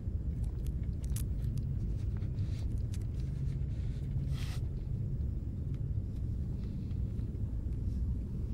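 Low, steady background rumble, with a few faint clicks and a short soft hiss about four seconds in.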